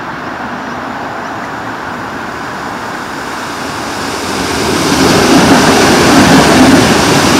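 Adelaide Metro 4000 class electric train running through the station without stopping: a steady rumble and rush of wheels on rail that grows much louder about four seconds in as the carriages pass close by.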